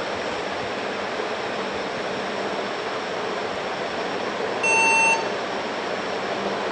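HP ProDesk desktop computer giving one short electronic beep nearly five seconds in, over a steady fan-like hiss. It is powering on with a known-good replacement power supply, which shows that the original supply was faulty.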